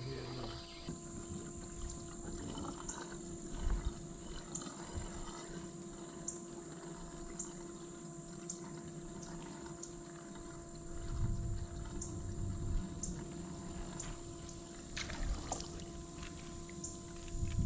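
Quiet water trickling and lapping against a fishing kayak's hull, with a few soft knocks and rumbles of movement in the boat.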